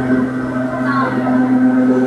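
Vintage Hakone Tozan Railway electric railcar under way, heard from inside the passenger car: a steady pitched whining hum from the running train, with passengers talking faintly.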